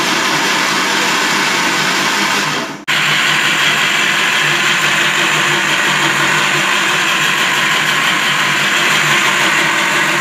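Electric countertop blender running at full speed, grinding cooked raw mango pulp into a smooth purée, with a brief break about three seconds in.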